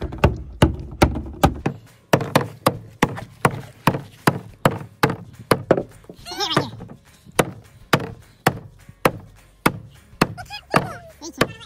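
Claw hammer striking a hard plastic freezer ice pack over and over, about two or three blows a second, with a short break about six seconds in.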